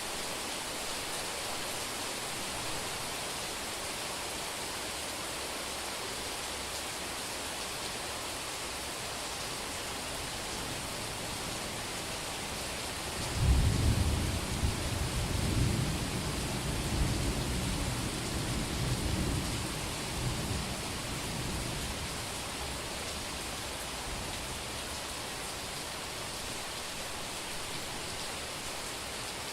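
Steady summer rain falling on a street, with a peal of thunder about halfway through that starts sharply and rumbles on for some eight seconds before fading back into the rain.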